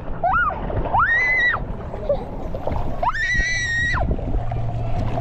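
Children's high-pitched squeals at a water park: two short ones, then a longer one about a second in and the longest, about a second long, near the end, over a steady background din.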